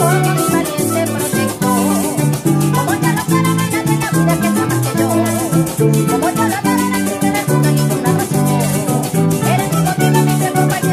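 Música llanera played on mandolin, cuatro, maracas and electric bass, with a woman singing the melody over a steady shaken maraca rhythm and a walking bass line.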